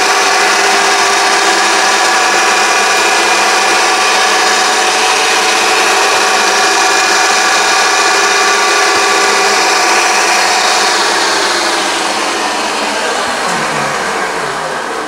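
Mini lathe's electric motor running steadily with a whine. About ten seconds in it is switched off and spins down, its pitch falling and the sound fading.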